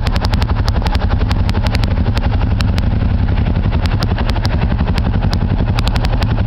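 ATV engine running steadily under way, with many sharp clicks over it.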